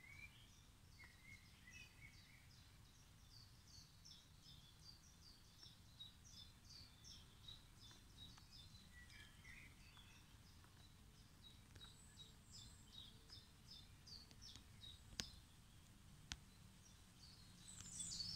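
Faint outdoor birdsong: a steady run of short, high chirps at about three a second, with a few lower notes mixed in. Two sharp clicks near the end and a brief louder high call right at the end.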